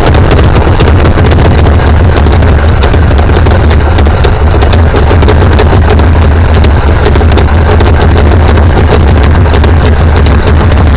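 Pontiac Firebird's engine running steadily with a loud, deep rumble and a rapid crackle over it, after a tune-up and ignition timing adjustment.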